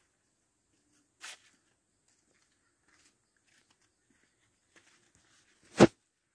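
Near silence broken by a short scuff about a second in and one loud, sharp thump near the end.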